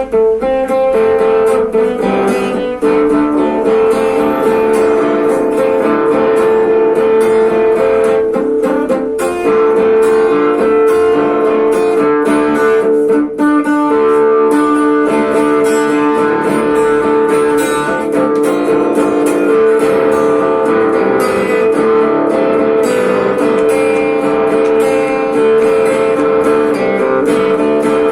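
Guitar playing Tuareg-style music: quick plucked notes over a steadily held low drone note.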